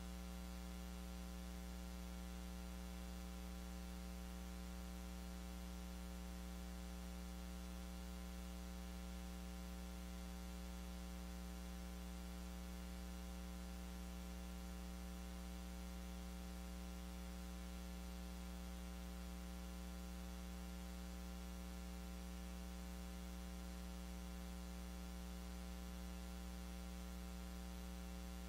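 Steady electrical mains hum at about 60 Hz with a buzzy stack of overtones, unchanging throughout. No other sound comes through it.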